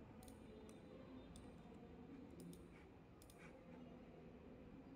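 Faint computer mouse clicks, a handful at irregular intervals, over a low steady room hum.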